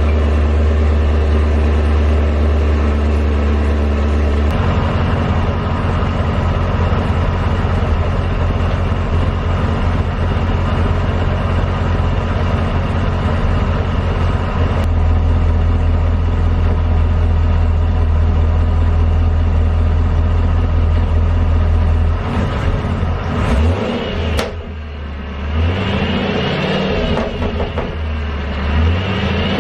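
Supercharged Chevrolet Camaro SS 6.2 L V8 idling after a fresh start through new long-tube headers, with the header tick the owner finds more noticeable than with shorty headers. The idle note shifts about four seconds in, and near the end the sound grows uneven and briefly quieter.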